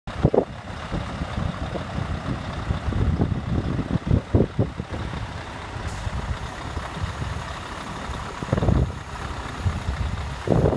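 Scania R520's V8 diesel engine running as the truck and trailer pull slowly across the yard, a steady low rumble. Irregular loud low buffets of wind hit the microphone several times.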